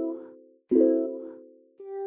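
Background music of plucked-string chords: each chord is struck and rings out, fading, with a new one about three-quarters of a second in and a softer note near the end.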